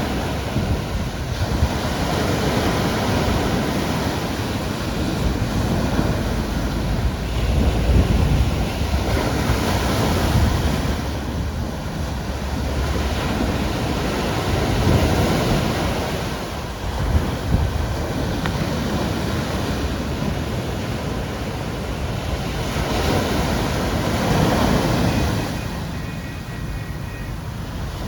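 Caribbean Sea waves breaking and washing ashore, a continuous surf that swells and eases every few seconds.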